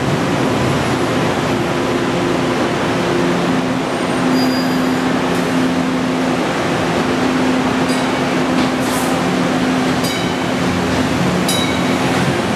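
Green Line light-rail trains in an underground station: a steady, loud rumble with a low electrical hum. A train approaches and pulls in alongside, with brief high-pitched wheel squeaks a few times in the second half.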